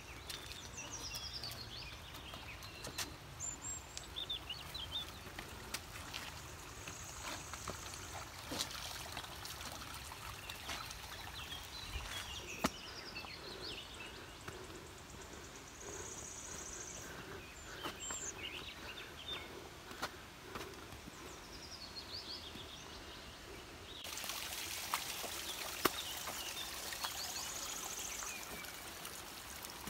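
Forest ambience: birds calling in short chirping series and trills over a steady background hiss, with scattered footsteps of hikers walking the trail. Near the end a louder rushing hiss comes in, like nearby running water.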